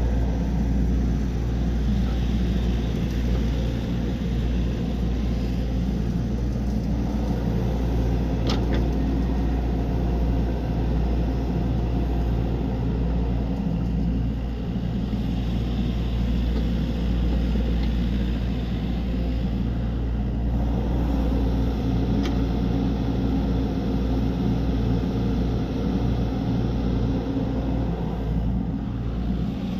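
Excavator's diesel engine running steadily under work, with two short sharp knocks, one about a third of the way in and one about three quarters of the way through.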